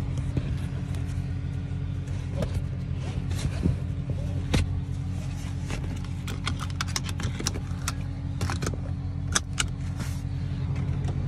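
A vehicle engine idles steadily under a string of sharp clicks and rattles that start about four and a half seconds in, as a strap is handled inside the car's cabin.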